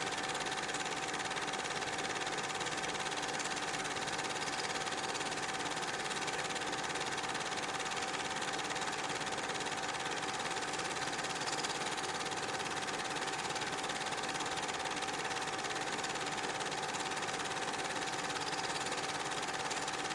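8mm film projector running: a steady mechanical whir and clatter with a constant mid-pitched hum through it.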